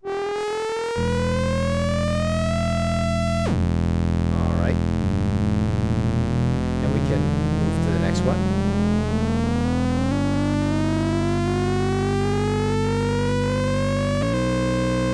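Buchla modular synthesizer with a hard-synced oscillator pair: a buzzy pitched tone glides slowly upward, holds briefly, drops back, then begins a second, longer slow rise that levels off near the end. The sweep makes the synced oscillator catch at whole-number pitch ratios, which gives the pentatonic steps of Buchla hard sync. A sustained bass note enters about a second in and shifts pitch partway through.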